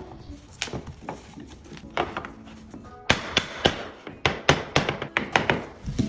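Repeated sharp taps and knocks, a few scattered at first, then coming quickly and irregularly from about halfway in, with faint music underneath.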